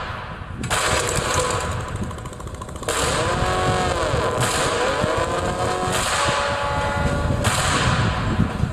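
Motorcycle engine running and being revved several times, its pitch rising and falling with each blip of the throttle. It gets louder about three seconds in.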